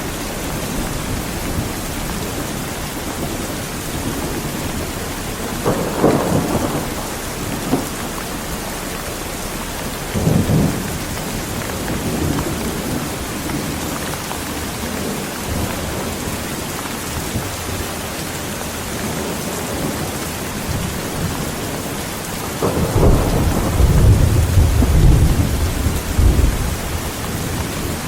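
Heavy rain falling steadily, with thunder rumbling several times: brief rumbles about a fifth and a third of the way in, and a longer, deeper and louder roll near the end.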